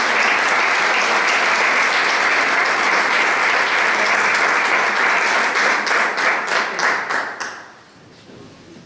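An audience applauding steadily, thinning to a few last separate claps and dying away about seven and a half seconds in.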